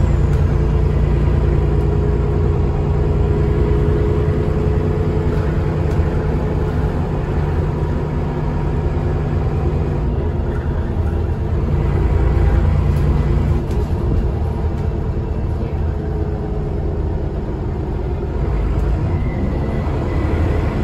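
ALX400 double-decker bus engine running while the bus is under way, heard from on board as a steady low drone with road rumble. The engine note eases about two-thirds of the way through.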